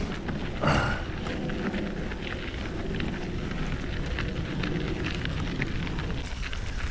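Mountain bike riding over a rough dirt trail: tyres rumbling over the ground with many small clicks and crackles from the trail and bike, and a louder clatter about a second in.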